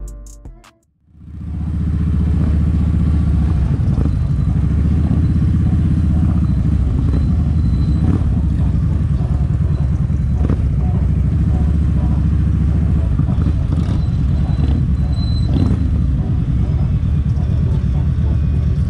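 Kawasaki Vulcan 1700 Vaquero's V-twin engine running steadily with the bike under way, a loud, even low rumble that starts about a second in.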